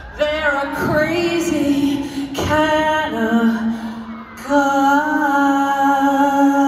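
A woman's lead vocal sung live through an arena PA, almost unaccompanied once the band's bass drops out. Short sung phrases are followed, about four and a half seconds in, by one long held note.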